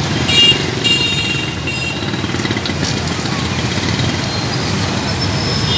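Steady rumble of road traffic and idling engines. A few brief high-pitched ringing sounds come in the first two seconds.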